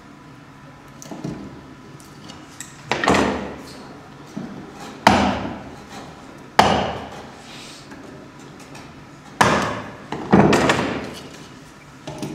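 Wood chisel cutting into the softwood of a door stile to recess a mortice lock's face plate: five loud, sharp cuts a second or two apart, each trailing off briefly, with a couple of softer ones.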